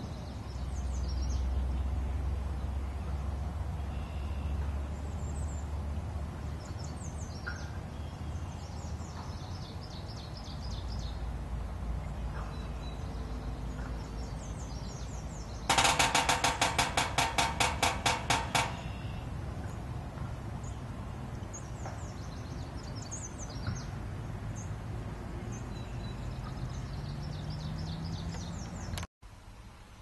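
Woodpecker drumming on a galvanized metal garbage-can lid: one rapid burst of ringing metallic strikes lasting about three seconds, about halfway through. Other birds sing faintly.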